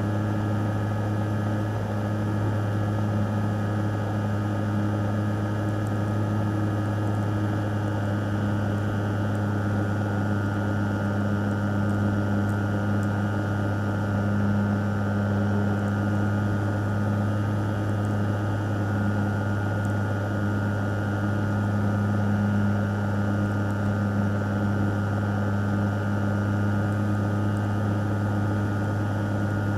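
Electric Dynam Tiger Moth RC biplane in flight, heard from on board. A steady simulated piston-engine drone comes from its onboard sound system, with a higher steady whine over it.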